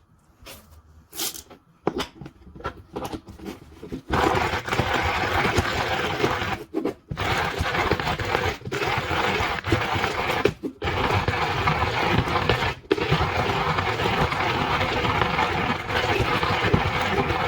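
Hario MSS-1DTB hand coffee grinder being cranked, its burrs crushing coffee beans in a loud, continuous grinding rattle broken by a few short pauses. A few scattered clicks and rattles come first, before the grinding starts about four seconds in.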